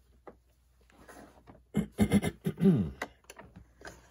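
Handling noise as a 1/8-scale RC desert truck is picked up by hand: light clicks and knocks, with a few louder short sounds falling in pitch about two seconds in.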